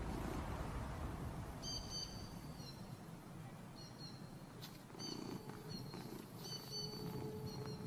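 An animal's short, high whistled calls, repeated every second or two in small groups of steady notes, over a continuous low rumble.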